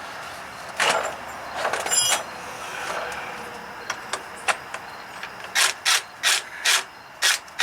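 Hand ratchet wrench clicking in a run of quick strokes from about five and a half seconds in, with a couple of metal clanks in the first two seconds.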